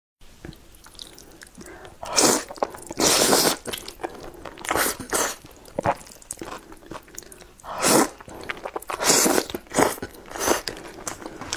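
Close-miked slurping and chewing of thick sauced noodles: a run of sharp, wet slurps a second or two apart, the longest about three seconds in, with quieter chewing between them.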